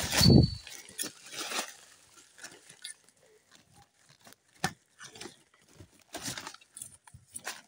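A short, low animal grunt or growl right at the start, then scattered rustles and clicks of dry leaf litter.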